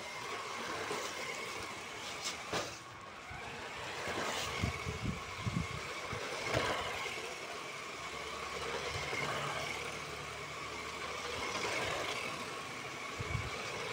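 Toy radio-controlled monster truck driving on a concrete floor: its electric motor whines steadily over the noise of its tyres, with a few short knocks.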